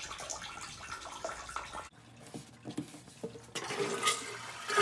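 Toilet flushing with water rushing. The sound cuts off abruptly about two seconds in, and a louder flush starts near the end and builds.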